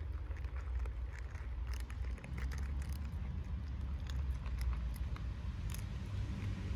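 Cats crunching dry kibble: many quick, irregular crunches, over a steady low rumble.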